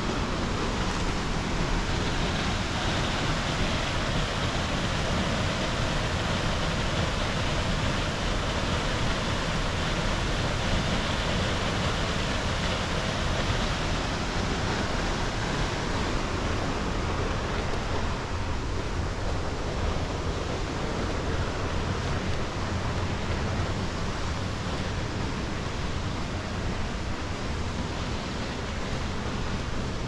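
Steady rush of a waterfall: an unbroken wash of falling water that holds an even level throughout.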